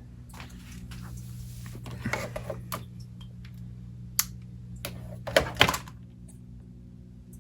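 Scattered light clicks and knocks over a steady low electrical hum, with a louder cluster of knocks about five and a half seconds in.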